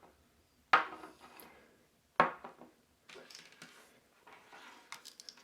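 Two sharp clacks about a second and a half apart, then softer rustling and small clicks: hard objects handled as the two size C batteries come out of the watch winder's battery compartment.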